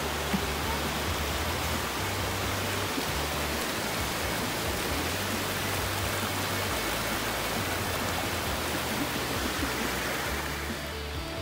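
Steady rush of a shallow, rocky stream running over stones.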